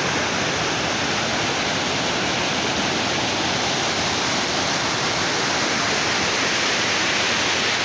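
Swat River running high in white-water rapids over a stony bed: a steady rush of water.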